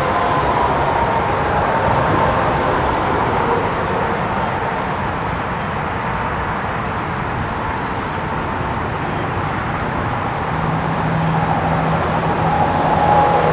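Steady noise of interstate highway traffic, with the tone of a Federal Signal STH-10 outdoor warning siren sounding faintly over it. The siren's pitch sinks slowly as it winds down.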